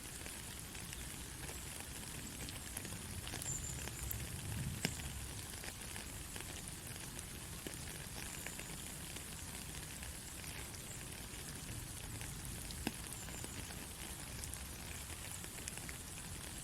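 Soft, steady rain falling: a fine even hiss with scattered drips and two sharper drop hits, about five seconds in and again near the end.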